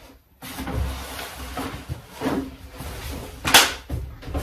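White foam protective wrapping being pulled off a large RC model aircraft fuselage on a workbench: rustling and handling knocks, with one sharp, loud noise about three and a half seconds in.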